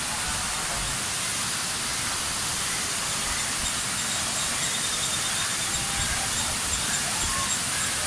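Steady rushing of a broad waterfall, Thirparappu Falls, an even hiss that holds level throughout.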